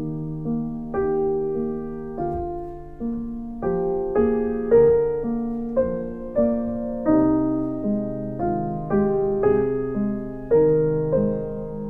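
Background piano music: a gentle melody of single notes and chords, struck about twice a second, each note fading after it sounds.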